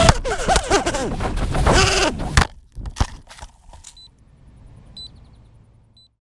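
Racing miniquad's brushless motors and propellers running, their pitch rising and falling quickly with the throttle. Two hard knocks come about two and a half and three seconds in as the quad crashes down. The motor sound then stops, leaving only faint short high beeps about once a second.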